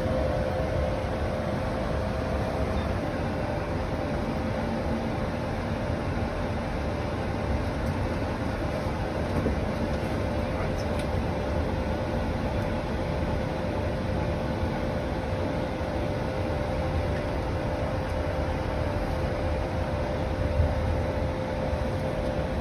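Steady cockpit noise of an Airbus A220 with its engines running: an even rumble and airflow hum with a steady mid-pitched tone on top.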